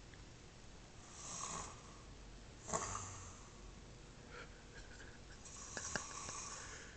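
A sleeper snoring softly: three faint, breathy snores, about a second and a half in, around three seconds in, and near six seconds in.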